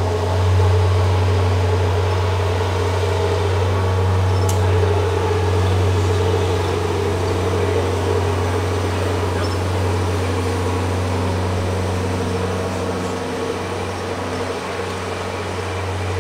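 Steady low mechanical drone with a few fainter steady tones above it, holding level throughout.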